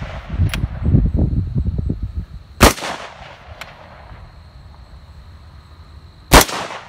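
AR-15-style rifle fired twice, about four seconds apart, each shot a sharp crack that rings out briefly. A low irregular rumbling comes before the first shot.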